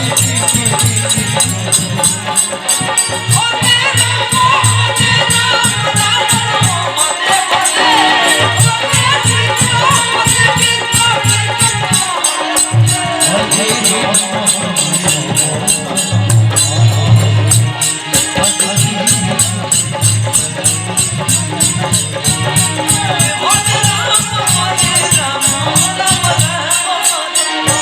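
Kirtan music: a fast, steady, high-pitched shaken or clashed percussion over a recurring low drum beat, with singing voices weaving through.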